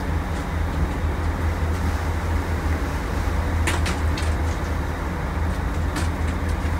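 Sportfishing boat under way: the engines drone steadily under the rush of the wake and wind. A few sharp clicks or taps come a little past halfway and again near the end.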